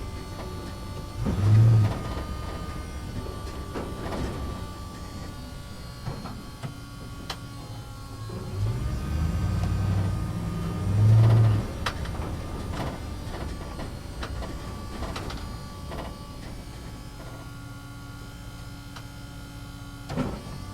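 Small electric motors and gearboxes of a toy RC excavator and dump truck whining, the pitch stepping as they change movement, with two louder buzzing surges, about two seconds in and again around eleven seconds, and scattered clicks and knocks.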